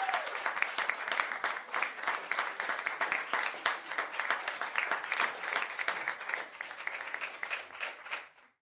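Applause from a crowd: many hands clapping densely and irregularly, slowly getting quieter and then cutting off near the end.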